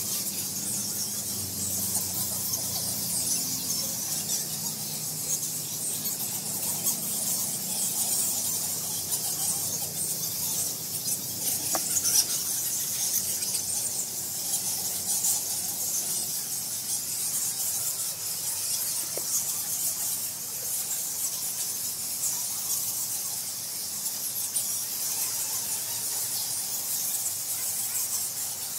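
A roosting bat colony squeaking and chittering constantly, a dense, high-pitched chatter of many overlapping calls.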